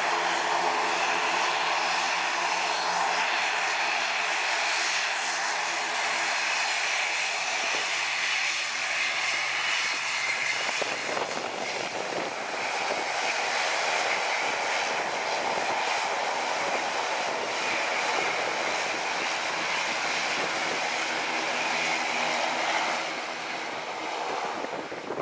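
ATR twin-turboprop airliner taxiing at low power: a steady drone of its engines and propellers with a low multi-tone hum. The hum thins out briefly about ten seconds in as the aircraft passes close.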